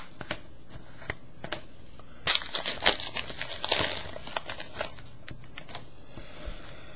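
Trading cards being handled, with a crinkling rustle and light clicks, busiest in a cluster of a few seconds in the middle.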